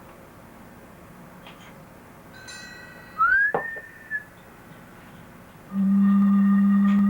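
Pitched whistle-like tones: about three seconds in, a tone glides up and holds briefly. Then, near the end, a loud steady low tone starts abruptly, with a fainter higher tone held beside it.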